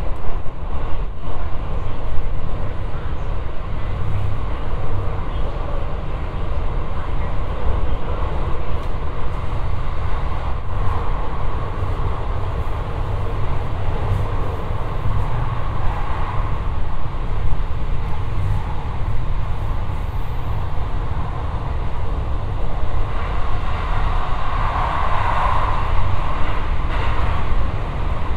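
JR West 223-series electric train running through a tunnel, heard from inside the car: a steady, loud rumble of wheels on rail, filling the cabin. It swells a little near the end.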